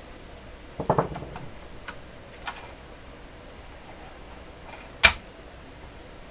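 Light clicks and taps of hand work on a small screw in a transistor radio's plastic case: a quick cluster about a second in, a couple of faint ticks, then one sharp click about five seconds in.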